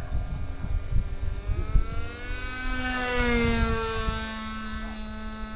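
Sporter .46 radio-controlled model plane's .46-size glow engine at full throttle, a high buzzing whine passing overhead. It grows loudest about three seconds in, then drops in pitch as it moves away. Wind buffets the microphone throughout.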